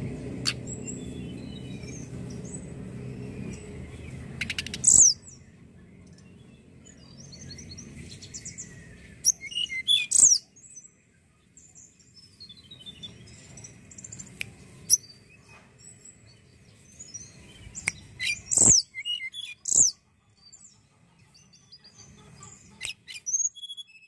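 Hill blue flycatcher (tledekan gunung) singing: loud, sharp whistled notes that slide steeply downward, in short clusters with pauses of several seconds between them. A low hum underneath stops suddenly about five seconds in.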